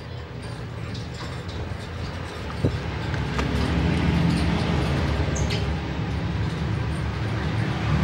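Low, steady engine rumble that grows louder from about three seconds in, with a few brief sharp ticks over it.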